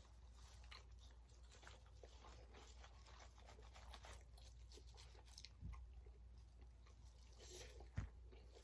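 Faint close-up chewing and crunching of food, with many small mouth clicks and two soft low thumps, the louder one near the end.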